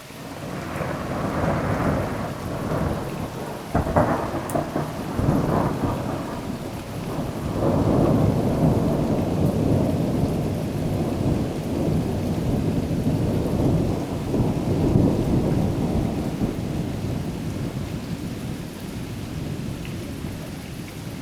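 Loud thunder from a lightning strike. It rumbles on for about twenty seconds, with a sharp crack about four seconds in, and slowly fades near the end. Steady rain falls throughout.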